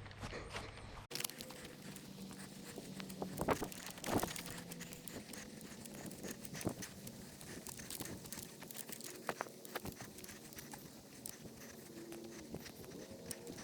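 Rain pattering, with rustling and scattered sharp taps and clicks; the background sound changes abruptly about a second in.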